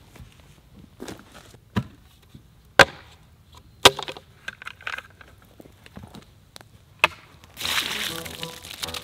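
Several sharp plastic clacks as the lid of a plastic bucket is pried off, the two loudest about three and four seconds in. Near the end, chicken feed is poured out of the bucket onto the ground in a steady rushing pour.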